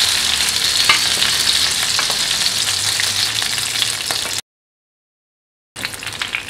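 Chicken pieces sizzling in ghee in a hot nonstick frying pan after roasting on high flame, with light clicks of a wooden spatula as the pieces are scooped out. About four and a half seconds in, the sound cuts out completely for more than a second, then the sizzle comes back quieter.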